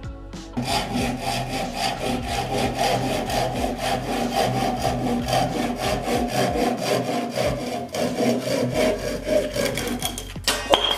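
Handsaw cutting through a wooden board held in a bench vise, in quick, even back-and-forth strokes. It starts about half a second in and stops near the end as the cut goes through and the offcut comes free.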